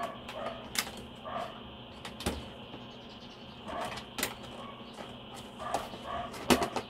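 Plastic shoe-box panels being handled and pushed together, with several sharp plastic clicks, the loudest near the end, as the parts are pressed to snap into place.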